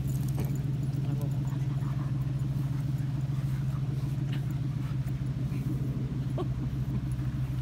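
Steady low motor hum, like an engine idling, with a few faint short squeaks.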